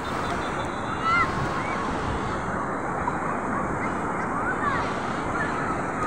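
Sea surf breaking and shallow waves washing over sand, a steady rushing noise with some wind on the microphone. A few faint, short high calls come through about a second in and again later.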